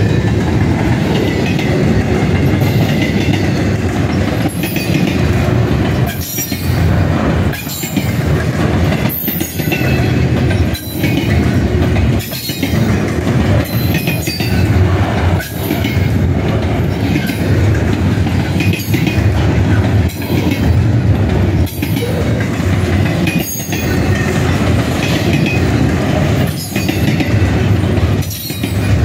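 Double-stack intermodal freight train of container well cars rolling past close by: a steady loud rumble of steel wheels on rail, with sharp clacks about every second and a half as the wheel sets go by.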